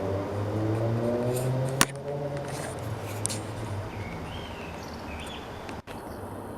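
A vehicle engine running outside with its pitch rising over the first two seconds, then fading to a steady hum. A single sharp click about two seconds in.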